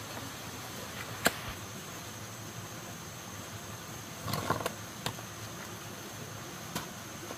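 A few sharp knocks over a steady background hiss: one loud knock about a second in, a short cluster of knocks around four seconds in, and two more single knocks after it.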